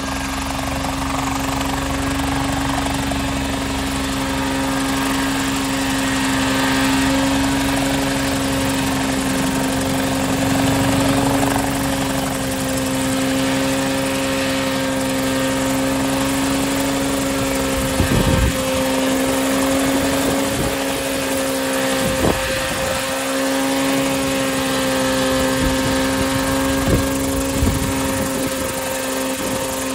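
Homemade coaxial helicopter running steadily: its Suzuki Hayabusa inline-four motorcycle engine and rotors make a loud, even hum at an unchanging pitch. A few low rumbling thumps cut in during the second half.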